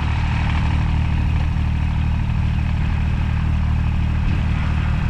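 Kubota compact tractor's diesel engine running steadily under load while dragging a heavy log on a chain.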